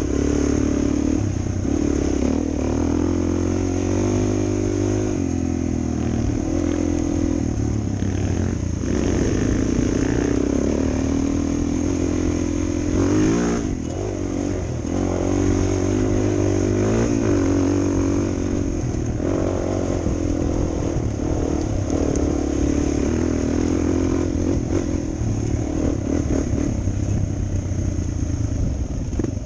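Suzuki DR 400 dual-sport motorcycle's single-cylinder four-stroke engine running under way, its pitch rising and falling several times with throttle and gear changes.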